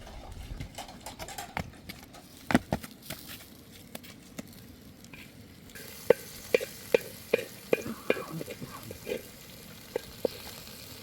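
Food frying in a pan, sizzling, while a utensil is stirred through it and knocks against the pan several times in a row.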